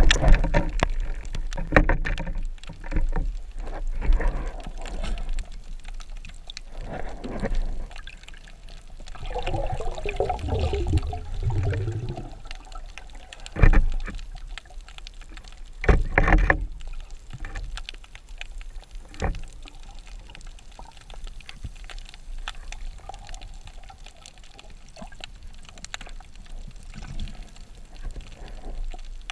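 Muffled underwater sound heard through a camera's waterproof housing: a steady low water rumble with scattered clicks and knocks, a louder rumbling stretch about a third of the way in, and two strong knocks about halfway through.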